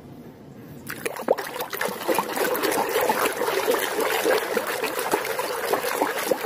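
A hand swishing and scrubbing a plastic toy goose in a plastic basin of muddy water: irregular splashing and sloshing with small clicks, starting about a second in.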